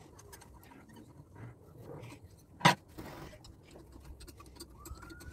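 A 14 mm metal spanner clicking and scraping on the pump's nuts and bolts as they are undone by hand, with one sharp clank about two and a half seconds in.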